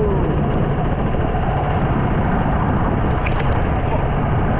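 Steady, loud rumbling rush of a vehicle driving on a wet road in heavy rain.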